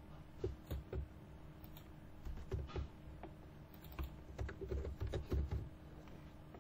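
Computer keyboard typing: irregular keystrokes in short runs, with brief pauses between.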